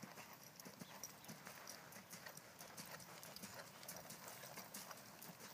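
Faint hoofbeats of a horse moving over sand arena footing, a scatter of soft thuds and small ticks.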